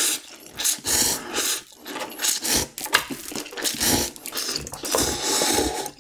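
Instant cup ramen noodles slurped through the mouth in a run of short, sharp slurps.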